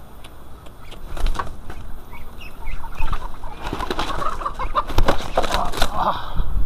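Muscovy duck flapping its wings hard in rapid, irregular bursts, building up from about a second in and loudest in the second half.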